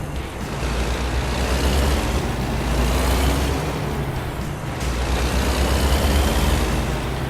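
Heavy truck's diesel engine running under load with road noise, swelling up and easing off twice.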